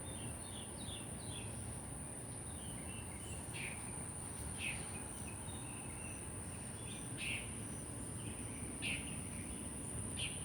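Outdoor evening ambience: a bird calling, first a quick run of short falling notes, then single downward-sweeping chirps about every one and a half seconds, over a steady high insect-like whine.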